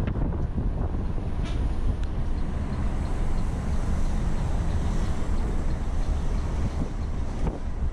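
Steady road and engine noise of a moving intercity coach.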